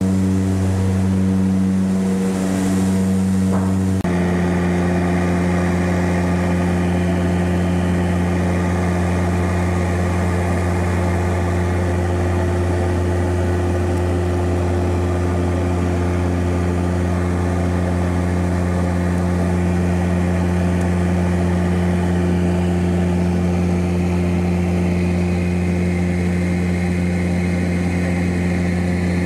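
Steady drone of a de Havilland Canada Twin Otter's twin PT6A turboprop engines and propellers in flight, heard from inside the cabin: a loud, deep, even hum with rushing noise over it. The tone shifts slightly about four seconds in.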